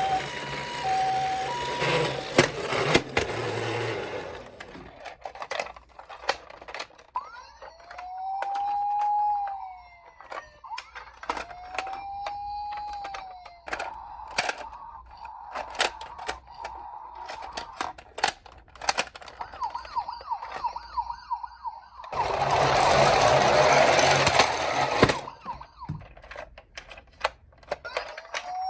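Toy emergency vehicle minicar sirens: a two-tone hi-lo ambulance siren at first, then an electronic wailing siren rising and falling slowly, twice, and again at the end. Many sharp plastic clicks and knocks run throughout, with loud rushing noise for a moment about two seconds in and for about three seconds near the end.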